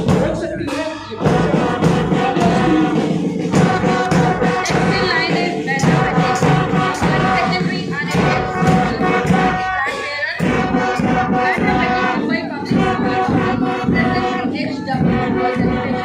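Live school marching band playing a tune on brass horns over the beat of side drums and a bass drum.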